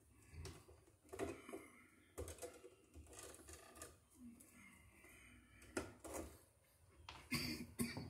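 Faint, irregular clicks, scrapes and rattles of pliers working copper ground wires at a plastic electrical box, with a louder cluster of clicks near the end.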